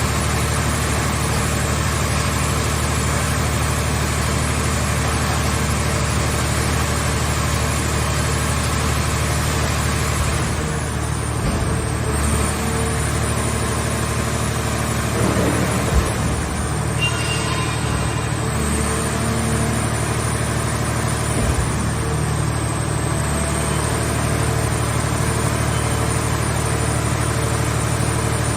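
Scrap car baler's power unit running steadily with a low engine-like hum, with a few short knocks partway through.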